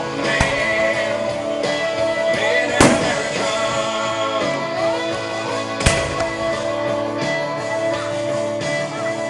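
Music with singing plays steadily while aerial firework shells burst with sharp bangs, three times a few seconds apart: about half a second, three seconds and six seconds in.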